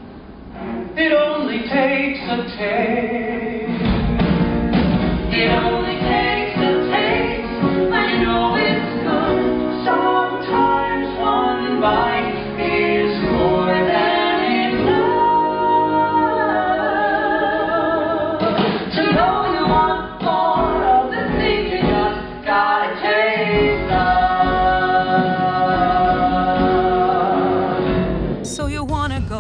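A man and a woman singing a musical-theatre duet with instrumental accompaniment. The sound changes about a second before the end as the recording cuts to another clip.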